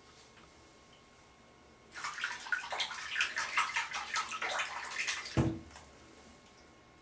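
Bathroom tap water running and splashing irregularly for about three seconds, starting about two seconds in, then a single dull knock.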